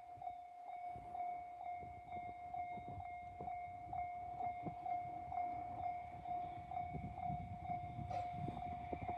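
Japanese railway level-crossing warning sounder (JR standard alarm) ringing evenly, about two strikes a second. Under it, the low rumble of an approaching EH500 electric locomotive grows louder from about a third of the way in.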